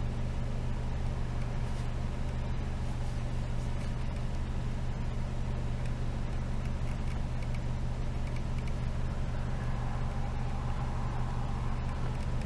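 Steady low engine drone with an even hum, and a faint higher whine swelling in over the last few seconds.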